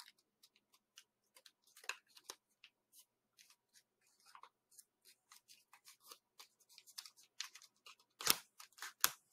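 Origami paper being folded and creased by hand: faint, scattered crinkles and small crackles, with two louder ones near the end.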